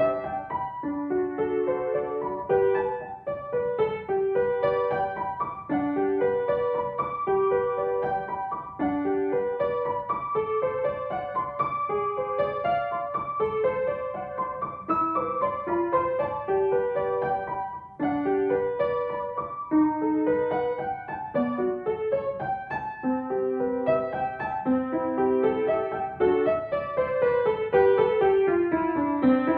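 Upright piano played solo: a steady flow of separate notes in the middle register, ending in a descending run near the end.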